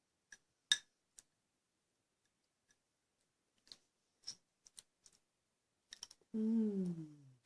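Scattered light clicks and taps of a spoon against a bowl while food is loaded onto it, followed near the end by a short voiced sound that slides down in pitch for about a second.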